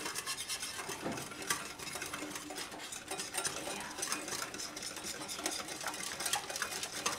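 Wire whisk beating a yogurt and spice marinade in a glass bowl: a quick, continuous run of light ticks as the wires strike the glass.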